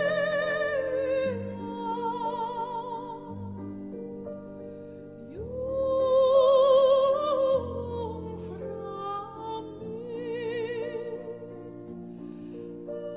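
Slow operatic-style music: long held melody notes with a wide vibrato over a soft accompaniment, swelling loudest about six seconds in.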